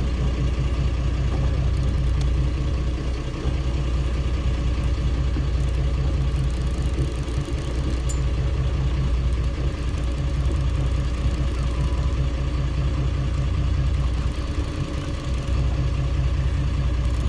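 A charter fishing boat's inboard engine running steadily at low revs, a deep even drone.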